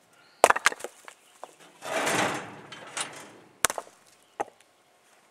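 Rocks being unloaded by hand from a tow-behind tractor cart: several sharp knocks of stone against stone and the cart, and a longer scraping rush about two seconds in, then two more knocks near the end.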